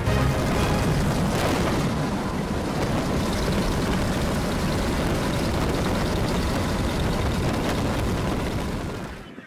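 Loud, steady rumble of a B-25 Mitchell's radial engines, propellers and rushing air heard from inside the aircraft as it lands and rolls along the runway. It fades out just before the end.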